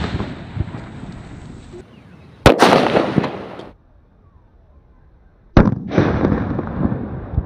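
Plastic bottles bursting from acetylene gas pressure built up by calcium carbide reacting with water. There are two sharp, loud bangs about three seconds apart, each dying away over about a second.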